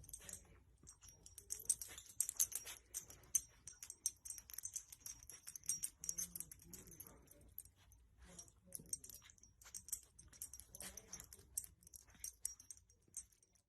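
A dog moving about close by, with faint, irregular light clicking throughout.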